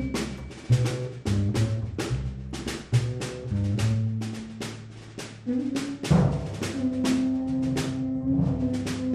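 Improvised live ensemble music: a drum kit plays a quick, fairly even run of strokes, about three or four a second, over low held notes that shift every second or so, with one low note held steady through the second half.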